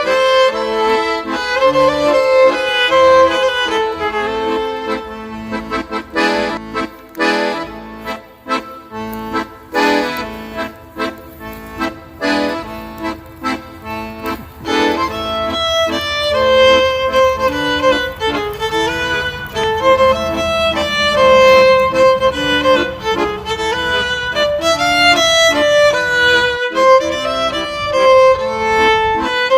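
Background music: a melody on accordion-like or bowed-string reed tones, with a faster run of short detached notes a few seconds in.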